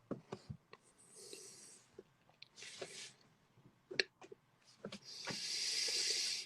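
Breathy hissing blown close into a microphone: three puffs, the last about a second long and the loudest, with a few sharp clicks between them.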